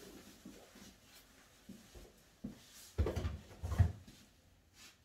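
A few soft knocks and shuffling, then two dull thumps about a second apart, three seconds in, as things are handled and set down on a wooden workbench.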